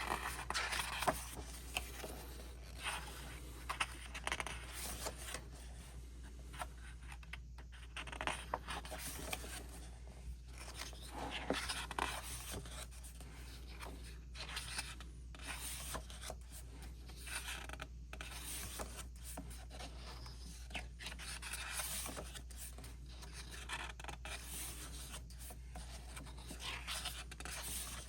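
Pages of a K-pop album photo book being turned and handled: irregular paper swishes, rustles and scrapes, one after another.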